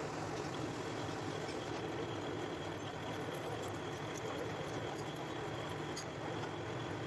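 Metal lathe running, its chuck spinning a round bar while the cutting tool faces the end: a steady machine hum with a thin high whine from the cut that sets in about half a second in, and a few faint ticks.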